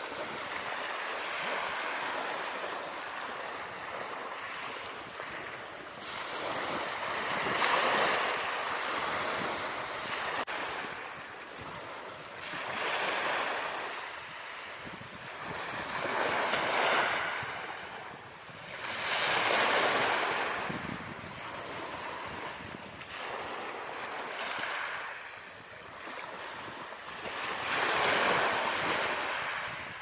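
Ocean surf: waves breaking and washing on a shore, a rushing hiss that swells and fades every few seconds.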